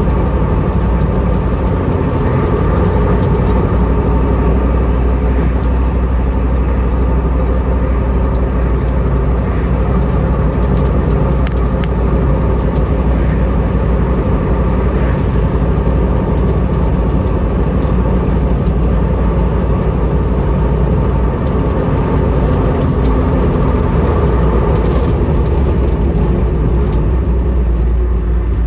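1977 Ford Bronco driving at a steady cruise, heard from inside the cab: a steady low engine drone mixed with road noise.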